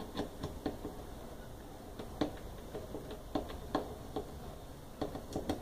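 Irregular light clicks and knocks, a few a second and unevenly spaced, from a Brastemp washing machine transmission mechanism as its shaft is turned and worked by hand during assembly.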